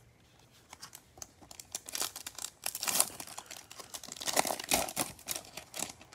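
Plastic-foil wrapper of a Topps Chrome baseball card pack crinkling and tearing as it is ripped open and the cards are slid out: a dense run of crackles that starts about a second in and is loudest around the middle.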